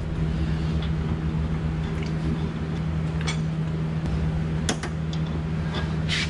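Steady low machine hum, with a few light clicks and clinks of metal suspension parts and tools being handled.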